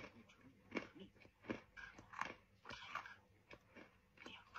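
Close-up chewing of crisp fried dough twists (mahua): a run of sharp crunches, roughly one every half to three-quarters of a second.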